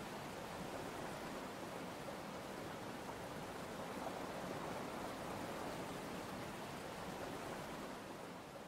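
Steady rain falling, an even hiss with no rhythm that fades out near the end.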